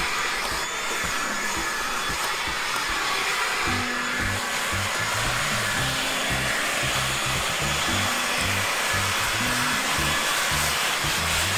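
Cordless electric leaf blower running steadily, a constant rushing hiss. Background music with a bass line comes in about four seconds in.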